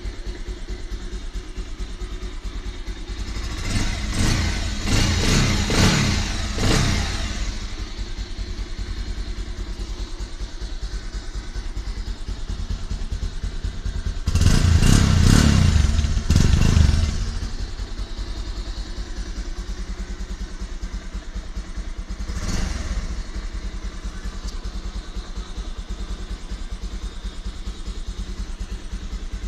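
Bajaj Pulsar 180's single-cylinder four-stroke engine idling through its stock exhaust. It is blipped a few times a few seconds in, revved longer and harder about halfway, and given one short blip later on.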